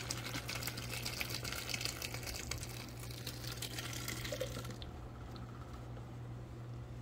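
Hot water and cooked elbow macaroni pouring from a saucepan into a plastic colander in a sink, splashing and draining through it. The pour stops about five seconds in.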